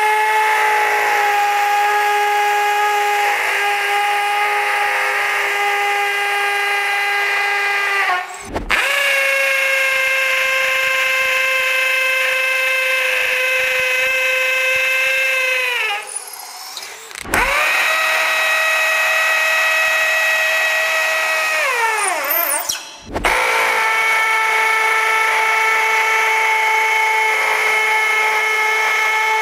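Cordless 18 V hammer drills boring a 12 mm masonry bit into sand-lime brick, one drill after another. There are four runs of a steady, high motor whine, each ending as the motor winds down. In the third run the pitch sinks steeply before it stops.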